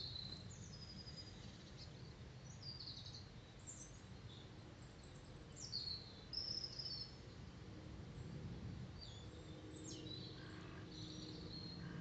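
Faint outdoor ambience: small birds chirping now and then over a low, steady background rumble.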